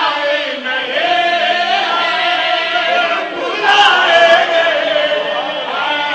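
Voices singing a chant together in chorus, with sustained, gliding sung notes.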